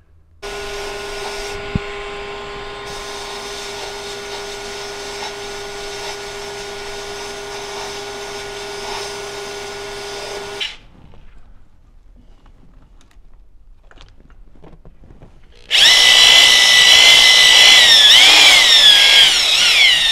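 A steady machine sound with a fixed pitch runs for about ten seconds and stops abruptly. After a few seconds of quieter clicking, a corded DeWalt power drill starts loud, spinning a shaft inside a Jaguar V-12 cylinder liner clamped on the bench. Its pitch dips and recovers as the load changes.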